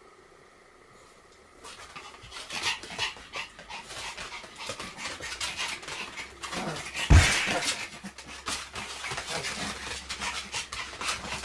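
Pomeranians play-fighting: dense scuffling and dog breath sounds starting about a second and a half in, with a heavy thump about seven seconds in.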